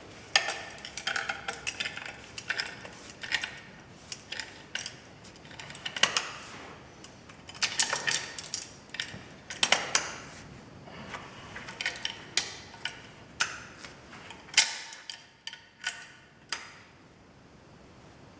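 Irregular metal clinks and clicks of hand tools working on a metal bracket, as its concrete anchor bolts are tightened down. The clinks come in clusters, with a quieter stretch near the end.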